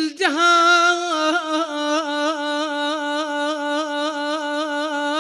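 A man's voice holding one long sung note without words, with a regular vibrato of about three wobbles a second. It is a drawn-out chanted vowel of Iraqi popular poetry recitation.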